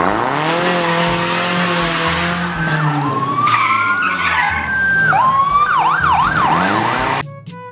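Police car skidding through a turn: tyres hissing loudly over the engine, which drops in pitch and then holds steady. Its siren rises into a steady wail and then switches to a fast warble near the end, before the sound cuts off suddenly.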